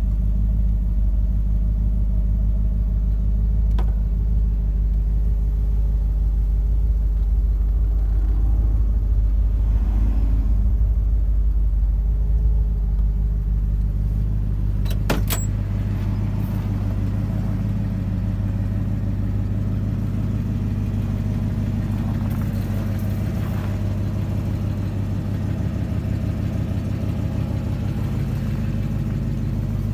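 The 400 cubic-inch V8 of a 1965 Oldsmobile Cutlass 442 idling steadily, heard from inside the car, with a single sharp click about halfway through.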